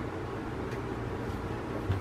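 Kitten jumping down from a cardboard box, landing with a dull thump near the end, over a steady low room hum with a few faint light taps.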